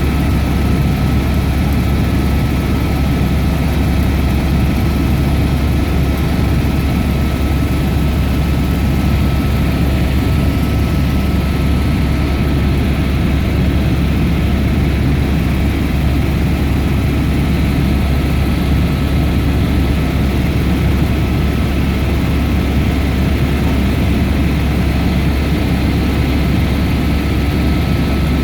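Helicopter running steadily: a loud, even drone with a thin steady whine over it.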